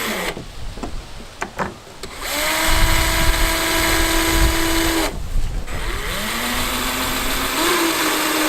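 Cordless power drill running in two long bursts: each time the motor spins up and then holds a steady whine before stopping, with a few light clicks between the runs.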